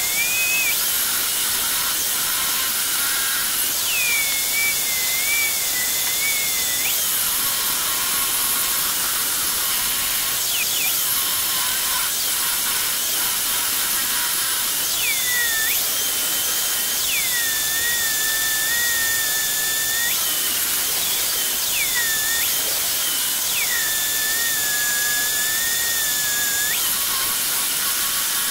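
Circular saw running as a homemade table saw, ripping strips off a wooden block against the fence. Its steady high whine drops in pitch several times for one to four seconds as the blade bites into the wood, then rises back while it runs free between cuts.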